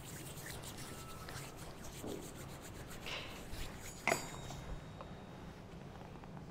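Quiet handling of altar vessels and cloths, light scrapes and rustles, with one sharp clink about four seconds in that rings briefly, as a vessel is set down on the altar.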